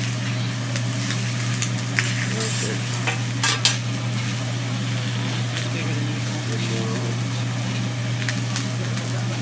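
Food sizzling on a hot griddle, with a few sharp clicks of metal utensils about two and three and a half seconds in, over a steady low hum.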